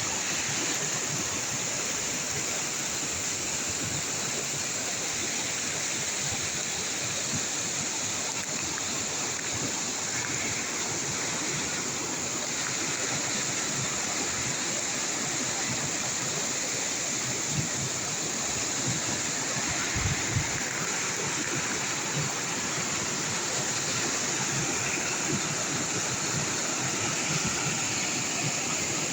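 Waterfall and stream water rushing steadily, with a brief low bump about two-thirds of the way through.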